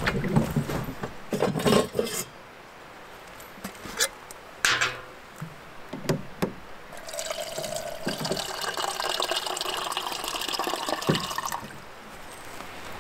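Clunks and knocks as a blue plastic water jug is set in place, and a few clicks from its spigot. Then water runs steadily from the spigot into a container held beneath it for about four and a half seconds and stops near the end.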